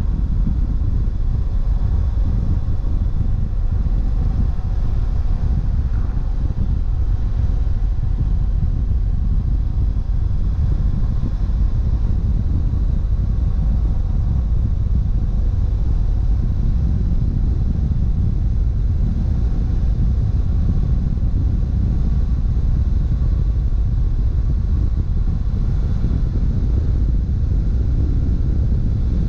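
BMW F700GS parallel-twin engine running steadily at cruising speed on a ride, under a constant low rumble of road and wind noise.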